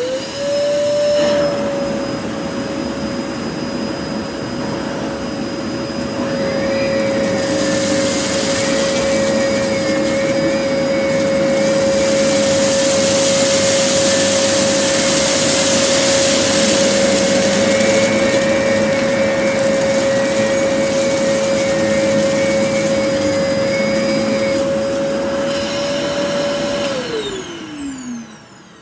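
Vacuum cleaner switched on and running with a steady high motor whine while sucking up rice from a low-pile carpet, a brighter rushing hiss coming in from about a quarter of the way through. Near the end the motor is switched off and winds down, its pitch falling.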